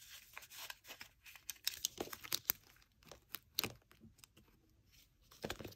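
Paper cash envelopes being flipped through and pulled from a plastic box: a run of light rustles, clicks and taps, fading out about four seconds in, then picking up again near the end.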